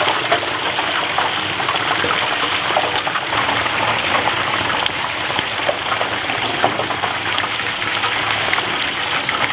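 Hot oil in a stockpot deep fryer bubbling and crackling steadily around a whole turkey as it is lowered in: the moisture in the bird boiling off into the oil, a steady hiss scattered with small pops.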